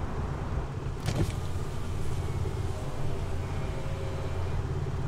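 Red Alfa Romeo Giulia idling with a steady low hum. There is a single knock about a second in, then from about three seconds in the whirr of an electric window motor as the car's side window lowers.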